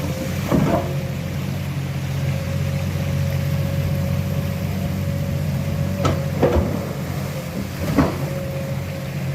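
Komatsu excavator's diesel engine running steadily, with a steady whine above the engine hum and a few short knocks: one just after the start, two around six to six and a half seconds, and one near eight seconds.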